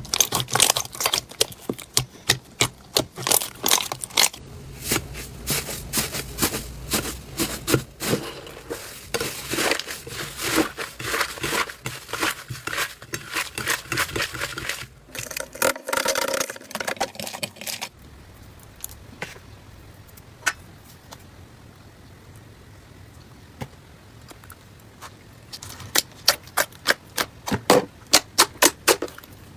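Slime being handled, making dense runs of crackles and small pops. It goes quieter with only scattered clicks for several seconds past the middle, then crackles thickly again near the end.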